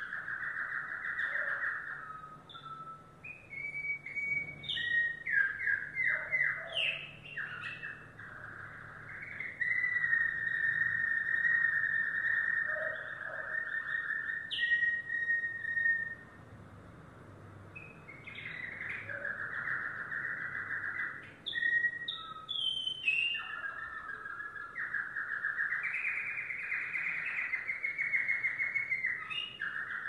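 Domestic canary singing: long rolling trills held near one pitch, broken by quick steep rising and falling sweeps, with a short pause about halfway through.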